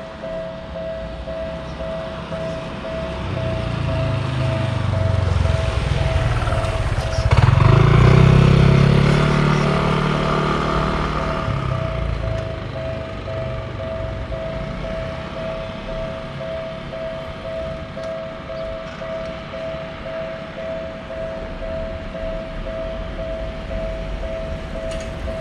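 Japanese railroad crossing's electronic warning bell ringing in a steady, pulsing two-tone pattern, while a Tokyu Toyoko Line electric train passes over the crossing: its rumble builds from a few seconds in, is loudest about a third of the way through, and fades by about halfway.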